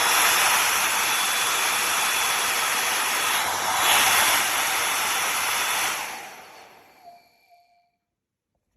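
Brushless-motor ionic hair dryer blowing steadily with a high whine, briefly louder about four seconds in. It is switched off about six seconds in and its motor winds down to silence.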